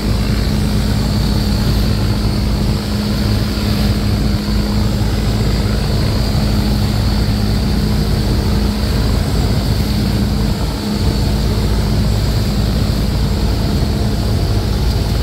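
Fishing boat's engine running steadily under way, heard from aboard, a constant low hum with wind and water noise rushing over it.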